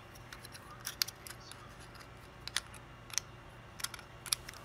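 Sharp metallic clicks and taps of an XLR microphone connector and a metal XLR-to-quarter-inch jack adapter being handled and pushed together, about six clicks spread over the few seconds, over a faint steady low hum.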